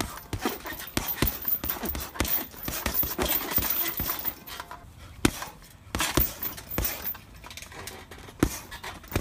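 Gloved punches landing on a Ringside heavy bag: irregular thuds in quick combinations, the loudest about five seconds in.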